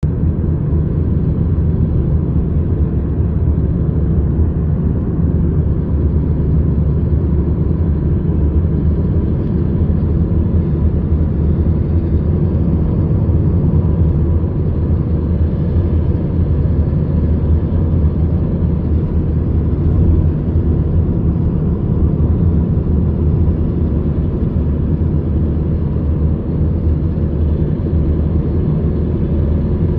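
Car driving along a road at a steady speed: a steady, low rumble of road and engine noise with no change.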